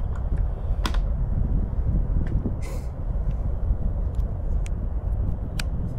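Steady low outdoor rumble with a few sharp clicks and knocks as a rifle is handled on a shooting bench, the clearest about a second in and another near the end.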